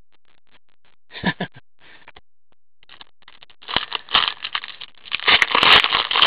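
A foil trading-card pack wrapper being torn open and crinkled in gloved hands. There are a couple of sharp ticks about a second in, then crackling that builds from about four seconds in and is loudest near the end.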